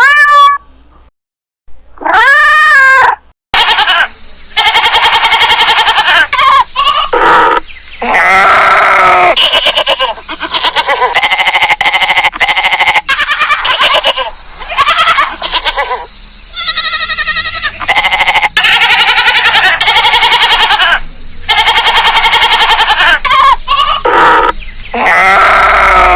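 Bleating livestock: many long, wavering bleats one after another, with brief pauses between some of them.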